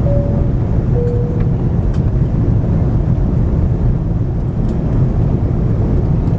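Steady low rumble of cabin noise inside an Airbus A340 airliner in descent. Just after the start, a two-note cabin chime sounds, a high note followed by a lower one about a second later.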